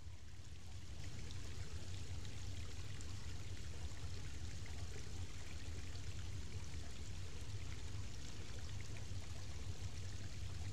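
Steady rush of flowing creek water, with a low steady rumble underneath.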